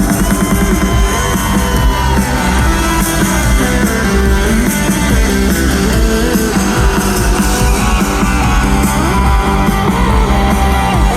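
Live rock band playing loudly, with guitars and a steady drum beat.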